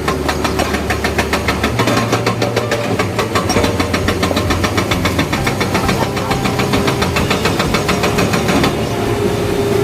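Excavator-mounted hydraulic breaker hammering andesite rock in rapid, even blows over the excavator's running diesel engine; the hammering stops near the end.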